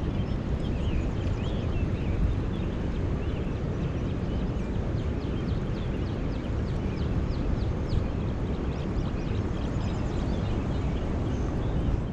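Steady low rumble of wind buffeting the microphone, with many short bird chirps over it, thickest in the middle stretch.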